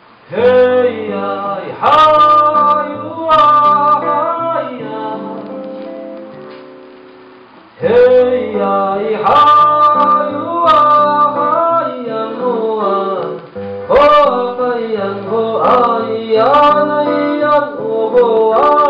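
Live acoustic music: plucked acoustic guitar with singing, a folk drinking song. It starts about half a second in, dies down to a lingering chord around six to seven seconds in, then picks up again about eight seconds in.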